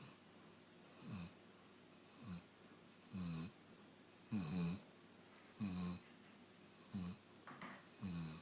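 Dog snoring in its sleep: a run of short, low snores roughly once a second, each one dropping in pitch.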